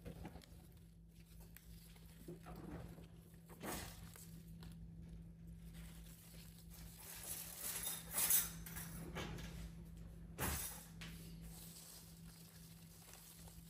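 Faint scattered rustles and knocks of things being handled, the loudest about eight seconds in, over a steady low hum.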